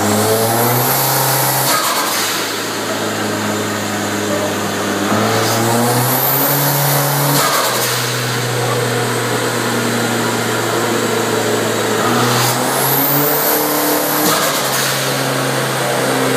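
Hyundai Genesis Coupe's turbocharged engine running on a dynamometer, its revs climbing and holding three times before settling back, while a manual boost controller is being set. Each time the revs climb, a high whistle rises and falls.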